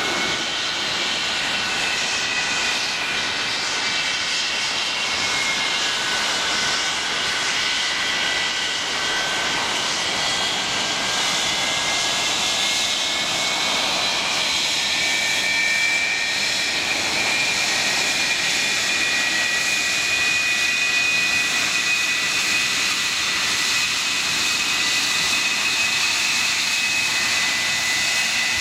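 English Electric Lightning's twin Rolls-Royce Avon turbojets running at taxi power: a steady jet roar with high whining tones that drift slowly up and down in pitch.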